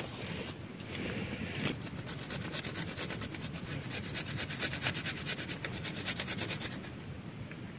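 A garlic clove rubbed back and forth on a small handheld metal grater: a quick, even rasping of several strokes a second that starts about two seconds in and stops shortly before the end.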